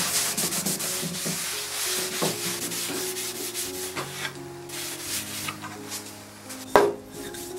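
A cloth rag damp with white spirit rubbed over a bare sanded wooden panel to wipe off the dust, in quick repeated strokes for the first four seconds or so, then a single sharp knock about seven seconds in.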